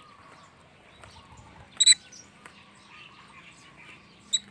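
Small pet parrot giving a short, sharp, high chirp about two seconds in, with a second brief chirp near the end, over faint background noise.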